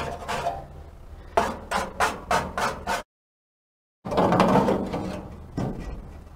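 Metal scraper scraping charred grease and carbon off a gas grill's metal drip-pan baffles in a run of quick strokes, about eight in three seconds. After a second of dead silence, metal scraping and rattling as a baffle is pulled out of the firebox.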